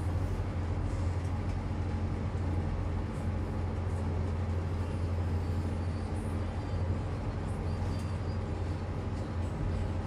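Otis lift car travelling downward in its shaft: a steady low hum and rumble.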